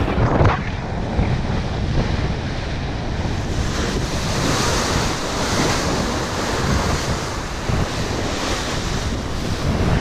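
Strong wind gusting on the microphone over the rush of sea waves past a sailing catamaran under way.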